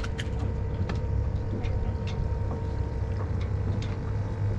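Steady low rumble of wind and water around a small open boat, with a faint steady hum underneath and a few light clicks scattered through.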